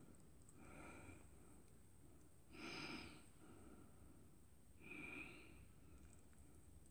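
Faint breathing through the nose, three breaths about two seconds apart, the middle one the loudest.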